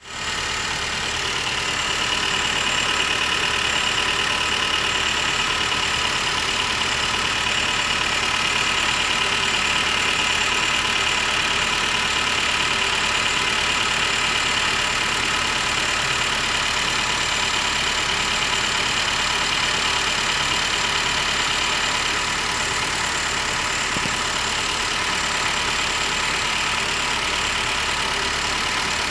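Nissan X-Trail 2.0 four-cylinder engine idling cold at about 1100 to 1200 rpm, with a steady high-pitched metallic buzz over it: a metal plate resonating, which the owner traces to the alternator. The noise shows only at cold idle and goes away once idle drops below 1000 rpm.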